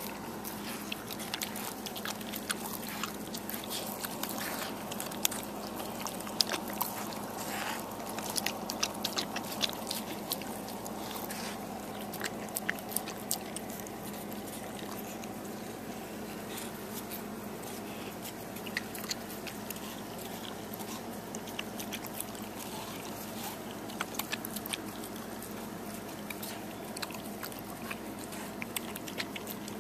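A dog biting and chewing into a slice of watermelon, a run of irregular short clicks that come thickest in the first half and thin out later.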